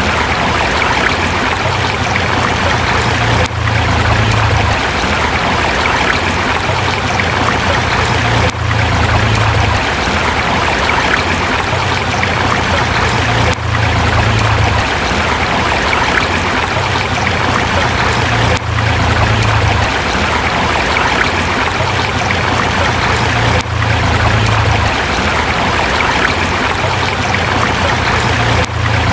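A forest river flowing steadily over rocks, a dense, even rush of water with a brief dip in level about every five seconds.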